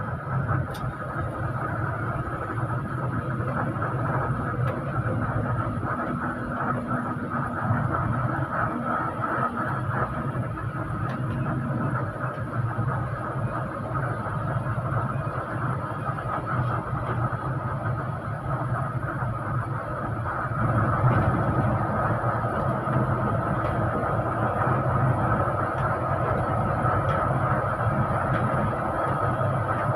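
Steady drone of a bus under way, heard from inside the cabin: engine hum and road noise with a steady whine in it, getting a little louder about two-thirds of the way through.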